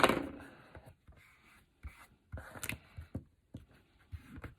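Cardstock and paper being handled and lined up on a tabletop: a sharp tap right at the start, then scattered light rubbing and soft taps.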